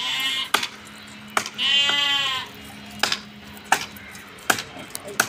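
Bleating from a small herd of goats and sheep: a short bleat at the start and a longer, louder one about two seconds in. A few sharp clicks fall between the calls.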